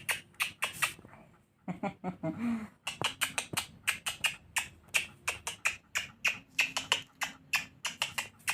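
A rapid series of sharp clicks or taps, about five a second, pausing briefly about a second in, with a short low pitched sound around two seconds in.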